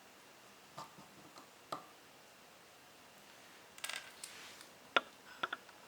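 Scattered faint clicks and light taps of small metal tools and parts being handled during bench work on a starter solenoid, with a brief rustle about four seconds in and a sharper click near the end.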